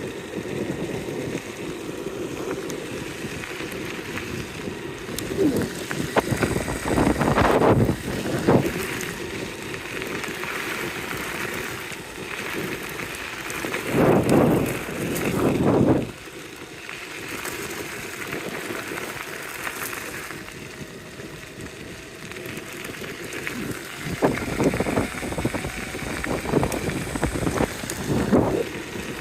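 All-terrain electric skateboard rolling along a dirt bush track: a steady rumble of the wheels on the rough ground, mixed with wind on the microphone, swelling louder three times.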